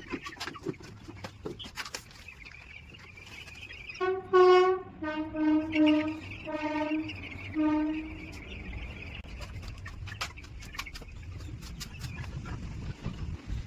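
Broiler chicks peeping, with sharp clicks throughout, while a vehicle horn honks five times in quick succession, loudly, from about four to eight seconds in.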